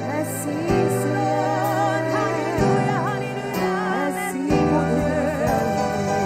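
Slow worship music: sustained keyboard chords that change every second or two, with a wavering melody line above them.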